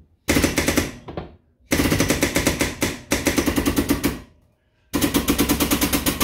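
Air-over-hydraulic pump of a 10-ton bench press chattering rapidly in several bursts as it drives the ram down, building pressure to about 5 ton to form a sheet-steel panel in a jig.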